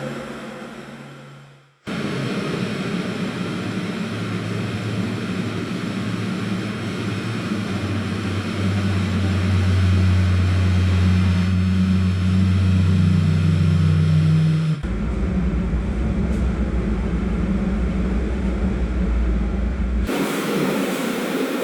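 Elevator hallway ambience: a steady machinery hum with low droning tones, cut into sections. It fades out briefly near the start and cuts back in, then grows louder with its pitch shifting midway. Near the end a deeper low rumble takes over for several seconds before the sound changes again.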